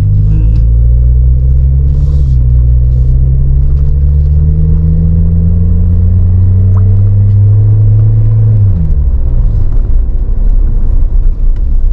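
Suzuki Jimny JB74's 1.5-litre four-cylinder with an aftermarket Greddy exhaust, heard from inside the cabin while driving: a low drone that rises slowly in pitch as the car picks up speed, then falls away quickly after about eight and a half seconds. The exhaust is subdued inside the cabin, calm enough to feel like a sedan.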